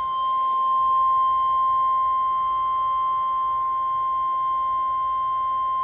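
NOAA Weather Radio 1050 Hz warning alarm tone coming through a weather radio's speaker: one steady, unbroken high-pitched beep. It signals that a warning, here a severe thunderstorm warning, is about to be read.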